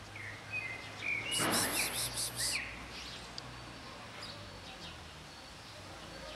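A small bird chirping, with a quick run of high repeated notes a little over a second in that lasts about a second. A low steady hum runs underneath.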